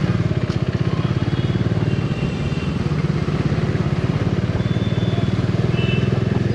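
Motorcycle engine running steadily while under way, with an even stream of firing pulses over road noise.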